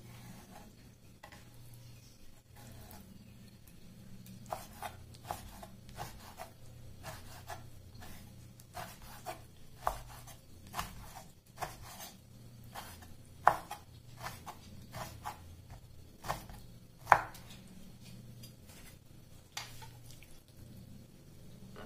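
Kitchen knife slicing raw beef liver into strips on a wooden cutting board: the blade knocks on the board in irregular taps, with two louder knocks a little past the middle and again about three-quarters through.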